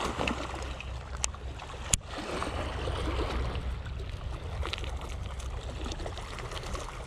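Sea water lapping and trickling at the shore, with a steady low wind rumble on the microphone. Two sharp clicks come about one and two seconds in.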